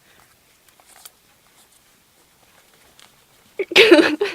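Faint scattered ticks and rustles, then near the end a loud, short, choppy cry with a wavering pitch.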